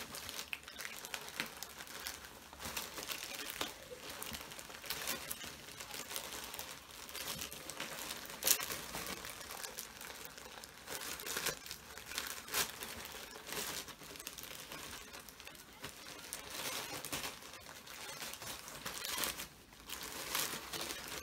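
Grey plastic mailer bag crinkling as hands pull and tear at the tough package to open it, with irregular crackles and a few sharper snaps, the loudest about eight and a half seconds in.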